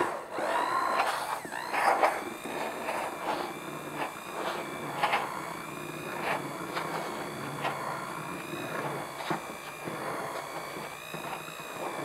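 Handheld immersion blender running in a pot of hot milk and chocolate, frothing it. Its motor gives a steady whine that wavers slightly in pitch, over the churning and splashing of the liquid.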